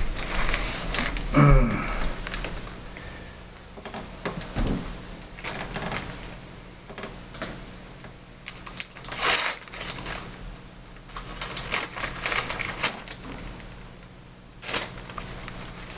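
Rustling, crinkling and clicking of first-aid supplies being handled while a wound dressing is prepared, in irregular bursts with the busiest ones near the middle and toward the end. A short voice sound falling in pitch is heard about a second and a half in.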